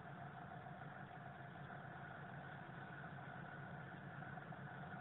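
Faint steady drone of an idling engine, even and unchanging throughout.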